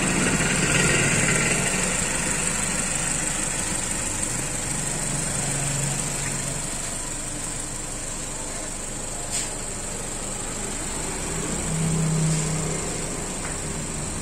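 Mazda CX-3 engine idling steadily and evenly, with a light click about nine seconds in. It runs smooth, with no noise from the blower motor, which has just been repaired.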